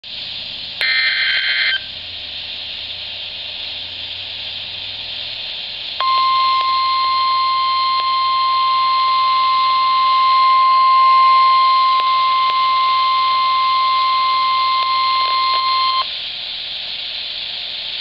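NOAA weather radio speaker sounding a tornado warning alert over a steady radio hiss. About a second in comes a one-second burst of SAME digital header data. Then, from about six seconds in, the steady 1050 Hz warning alarm tone holds for ten seconds and cuts off suddenly.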